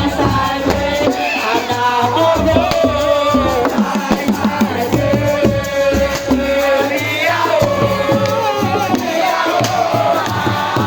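Loud music with voices singing or chanting together over a repeated low beat.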